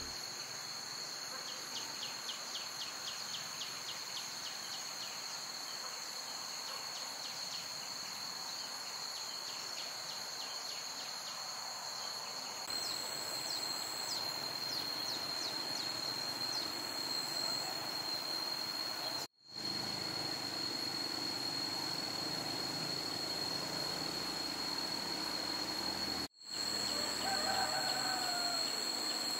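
Countryside ambience dominated by a steady high insect drone, with a run of quick ticking chirps over the first several seconds. Near the end a rooster crows. The ambience breaks off for a moment twice.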